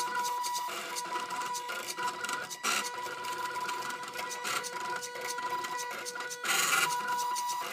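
Arduino-driven pen plotter built from CD/DVD-ROM drive mechanisms, its drive sled stepper motors whining with a steady tone as the pen draws, broken by short louder rasping bursts about three seconds in and again near the end.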